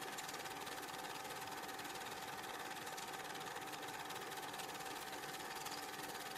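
Film projector running: a steady mechanical whir with a fast, even clatter, a constant tone and hiss.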